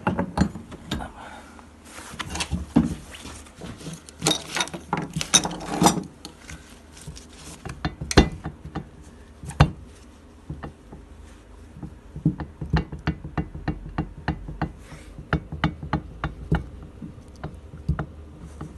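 Knocking inside a removed Nissan Tiida Latio steering rack as it is worked back and forth by hand: a run of short, sharp knocks, a few louder ones early on, then a steady series of about two or three a second. The knock is the sign of play in the rack, the fault being shown.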